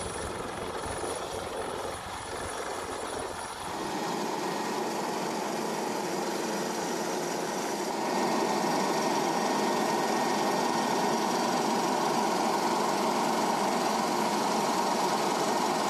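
Helicopter noise: a steady rotor and turbine drone that gets louder about four seconds in and again about halfway through.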